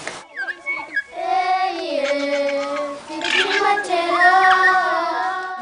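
A child singing a slow melody in long held notes, starting about a second in.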